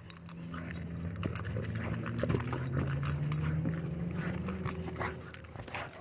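A dog shaking and swinging a knotted rope toy: thuds of paws and rope on the dirt and the jingle of collar tags, over a low steady drone whose pitch rises slightly and fades about five seconds in.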